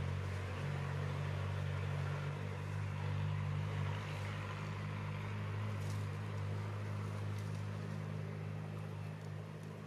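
A motor running steadily nearby: an even, low hum that holds throughout, over a light background hiss.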